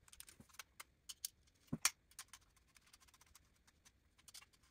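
Faint, scattered clicks and taps of small metal parts: a VEX V5 motor being screwed onto an aluminium C-channel with a hex driver. Two louder clicks come near the middle.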